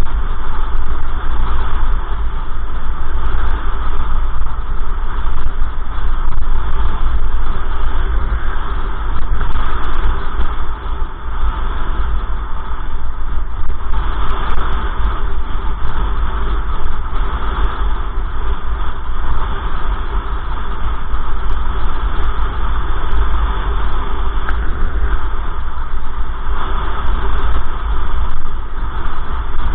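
Loud, steady rumble of wind buffeting a moving camera's microphone, mixed with road noise, with a short dip about ten seconds in.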